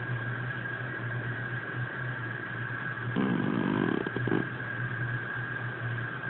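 A sleeping house cat snoring, with one louder, rasping snore about three seconds in that lasts a little over a second, over a steady low hum.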